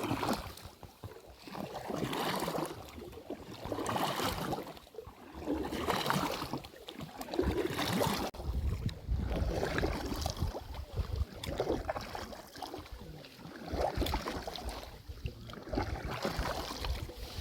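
Rowboat on a lake being rowed, the oars splashing and pulling through the water about every two seconds, with wind buffeting the microphone.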